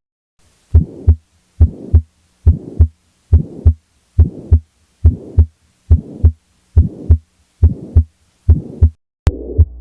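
Stethoscope recording of a heart with pulmonary stenosis: a steady beat of about seventy a minute, each beat a pair of low thumps with a rushing systolic murmur filling the gap between them. Near the end it cuts to another heart recording with a steady hum beneath the beats.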